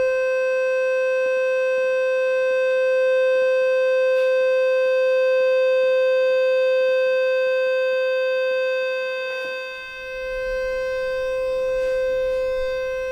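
Steady pure tone near 510 Hz with fainter overtones, from a salvaged car-audio loudspeaker driven by a frequency generator and sounding into a clear acrylic Kundt's tube. It is tuned to a lower resonance of the tube (the harmonic below 765 Hz), so a standing wave forms inside. The tone dips briefly in level near the middle, then returns.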